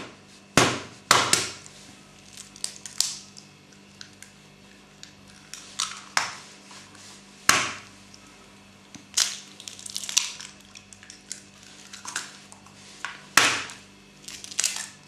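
Eggs being cracked: sharp shell cracks and knocks, a dozen or so at irregular intervals.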